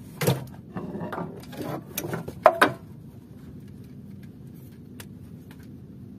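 A spinning reel and rod being handled, clicking and rattling in several quick bursts over the first three seconds, the loudest about halfway through. A steady low hum carries on underneath.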